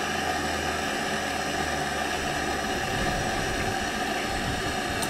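Propane hand torch burning with a steady hiss.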